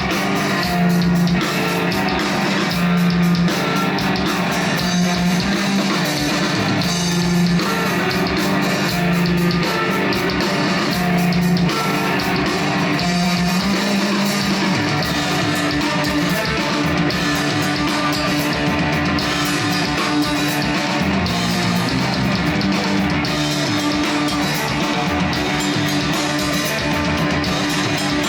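Live stoner rock band playing: electric guitar and drums in a heavy rock riff of repeated low notes, turning to long held notes about halfway through.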